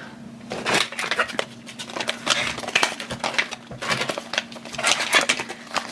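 Small cardboard toy box being handled and torn open by hand, a run of crinkling, crackling and tearing of its packaging.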